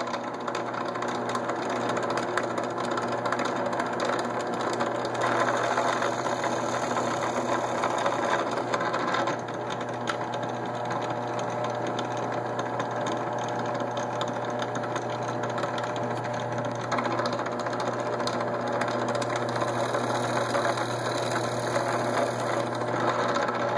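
Benchtop drill press running steadily with a constant motor hum, its twist bit boring into the end of a hardwood dowel; the sound turns brighter and harsher while the bit is cutting, about five to nine seconds in and again near the end.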